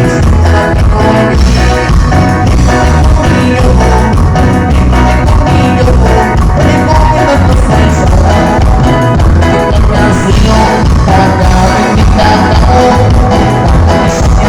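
Loud music played through a large sound system during a sound check, with a heavy pulsing bass.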